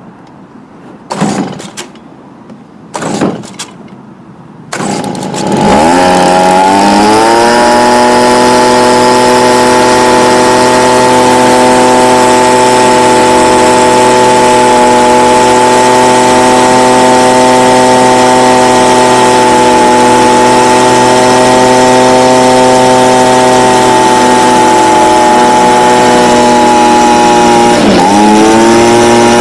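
Stihl BG55 handheld blower's small two-stroke engine pull-started: two short pulls of the recoil starter, then it catches about five seconds in and revs up to a steady high-pitched drone at full throttle. Near the end the revs dip briefly and then climb back, while the engine is being tuned on the new carburettor's high-speed screw after bogging at full throttle.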